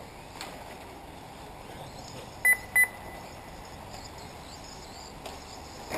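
Two short, loud electronic beeps about a third of a second apart, a little over two seconds in, over the faint wavering whine of radio-controlled cars running on the track.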